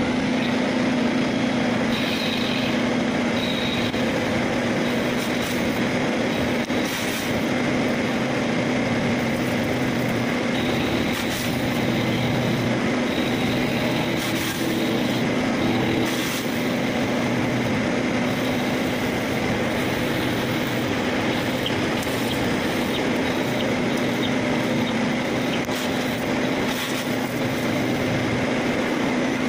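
CNC turning centre running a turning cut with flood coolant spraying over the turret and workpiece: a steady machine hum with a constant low tone, and now and then a brief high hiss.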